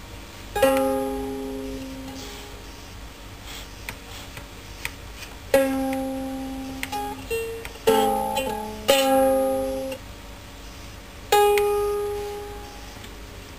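Open strings of a Mahalo ukulele strummed unevenly by a baby's hand, about five times, each chord ringing out and fading over a second or two, with small knocks between strums.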